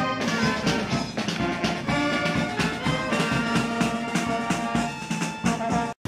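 Brass band with drums playing a lively tune: sustained horn notes over a steady beat. The music cuts off abruptly near the end.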